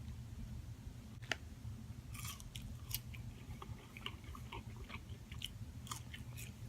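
A person chewing a mouthful of breakfast burrito, with soft wet mouth clicks and smacks scattered through, over a low steady hum.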